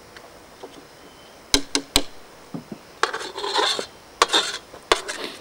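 Metal cutlery clinking and scraping on dishes: a few sharp clinks, then a second or so of rough scraping about three seconds in, then more clinks.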